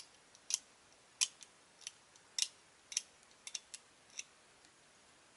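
Hobby nippers snipping small plastic model-kit parts off the sprue: about ten short, sharp clicks at uneven intervals. The cuts leave nub marks on the parts.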